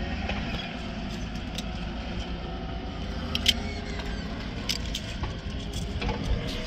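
Steady low rumble of heavy machinery running, with a couple of faint sharp clicks, one about three and a half seconds in and another near five seconds.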